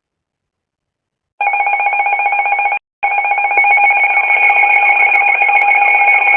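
Emergency Alert System attention tone: a loud, harsh steady alarm of held tones that starts about a second and a half in, breaks off for a moment near three seconds, then carries on.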